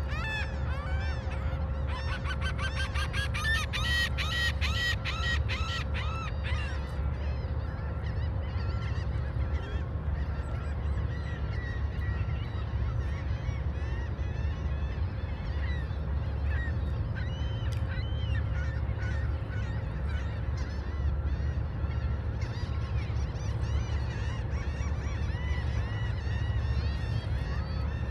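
Gulls calling over and over in short arched cries, a quick run of calls about two seconds in, then scattered calls, over a steady low rumble and a faint steady hum.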